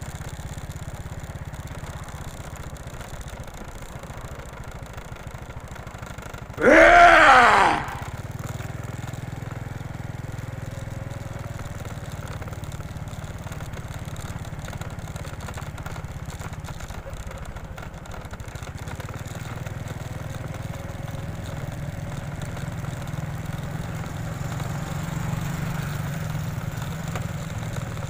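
A vehicle's engine running with a steady low drone while riding. About seven seconds in there is one loud cry lasting about a second, its pitch rising and then falling.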